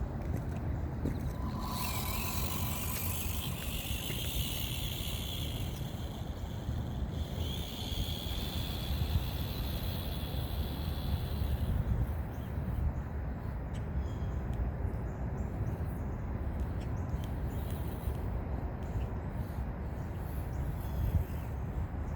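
Small electric motor and gears of a 1/24-scale Axial SCX24 RC crawler whining in two stretches of several seconds each as it drives on slag, over a steady low rumble of wind. The whine stops about halfway through.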